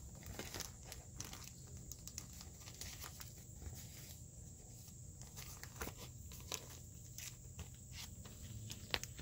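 Clear plastic comic-book sleeve crinkling and crackling as it is handled, in quiet scattered rustles and clicks, with a sharper crackle near the end.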